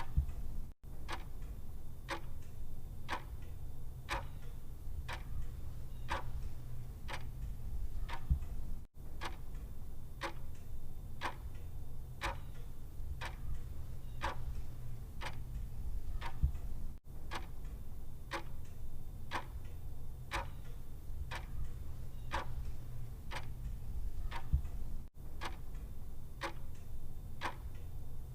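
Clock ticking steadily, about two ticks a second, over a steady low hum, with a brief gap about every eight seconds.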